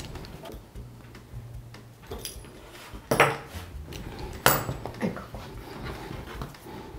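A few small clicks and clinks, two sharp ones about a second apart near the middle, from a metal fluted pastry wheel and hands handled on a wooden table as the dough trimmings are peeled away, over a low steady hum.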